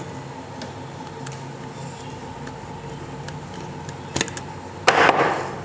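Small-screwdriver work on a switch terminal: faint clicks and a scrape as a wire is tightened into a switch-board terminal screw, with a sharp click about four seconds in and a louder short rasp about a second later, over a steady background hum.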